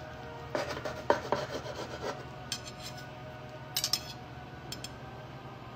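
Large kitchen knife sawing through cooked chicken on a cutting board, held with a fork: a few bouts of rasping strokes, with sharp clicks of the metal knife and fork on the board.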